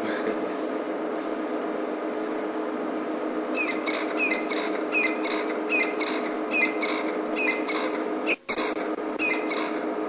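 Crested francolin calling: the same short phrase repeated about twice a second, starting a few seconds in, over a steady electrical hum. The sound cuts out briefly once near the end.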